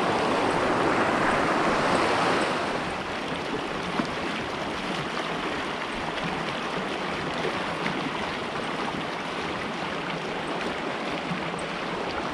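Small mountain stream running over cobbles: the water is louder and closer for the first couple of seconds as a hand stirs it, then settles to a steady, softer babble. One light tap about four seconds in.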